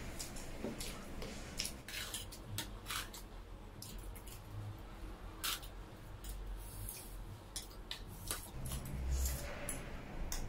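Eating sounds: forks clicking and scraping against a metal tray and a plate as chowmein noodles and wet chatpate are picked up and chewed, with many small irregular clicks.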